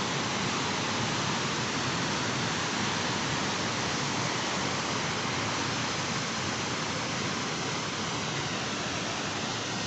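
Steady, even rush of falling water at a waterfall.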